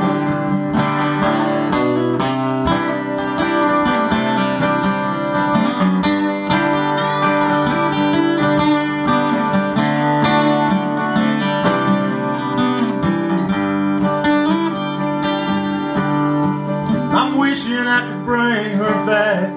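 Acoustic guitars playing an instrumental break in a country song: strummed chords under a picked lead line, with no singing.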